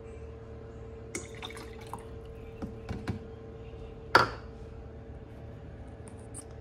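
Lemon juice poured from a small bowl into a tumbler of coffee, trickling and dripping in small splashes, then one sharp knock about four seconds in as the bowl is set down on the counter. A faint steady hum runs underneath.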